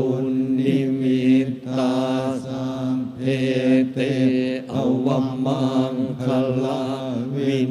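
Thai Buddhist monks chanting together in unison on a steady, near-monotone pitch, the syllables following one another in an even rhythm.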